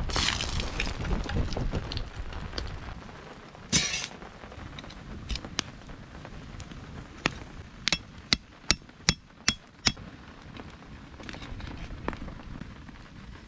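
Rainwater pouring off the edge of a tarp awning, then a short clatter about four seconds in, and later a quick run of about six sharp metal clinks as the steel parts of a small camp grill stove are handled over a campfire.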